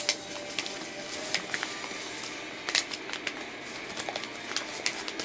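A sheet of paper handled and folded, rustling with scattered, irregular crackles and soft ticks as it is creased.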